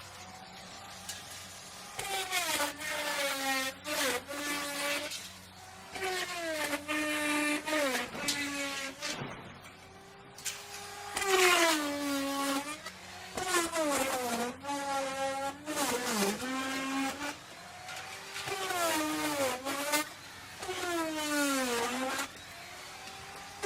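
Electric wood router cutting, its motor's pitch sagging as the bit bites into the wood and climbing again as it frees, in repeated passes of one to two seconds, with a lower steady whine between them.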